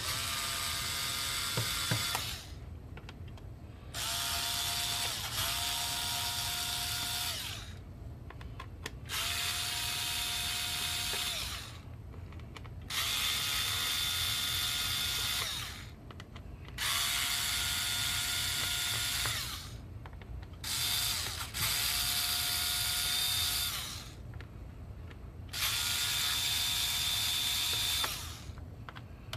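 Small electric screwdriver running in about eight runs of two to three seconds each, with short pauses between, a steady motor whine each time: driving out screws one after another.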